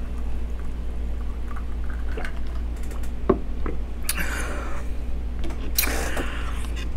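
Close-miked drinking from a glass of iced cola: quiet sips and swallows with small clicks, then a sharp click a little past three seconds in as the glass is set down on the wooden board. Two short bursts of hiss follow near the end, over a steady low hum.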